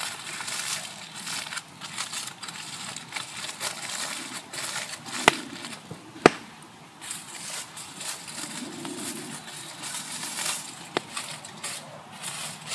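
Aluminium foil crinkling and rustling as a food parcel is folded and crimped shut by hand, with a sheet of foil handled near the end. Two sharp pops stand out about five and six seconds in, from the wood campfire burning alongside.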